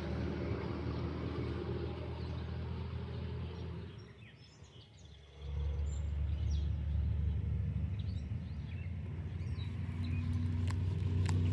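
A steady, low engine drone with a few even pitches. It cuts out about four seconds in, returns a second and a half later and slides down in pitch near the end, with faint bird chirps over it.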